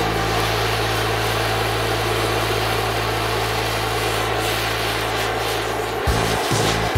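Gas torch flame hissing steadily against a toothpaste tube. Underneath is a steady low drone, which breaks into a pulsing beat about six seconds in.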